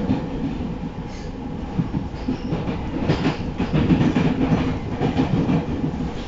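Running sound of a JR East 209-3100 series electric train at speed, heard from inside the passenger car: a steady rumble of wheels on the rails, with a cluster of rail-joint clacks from about three seconds in.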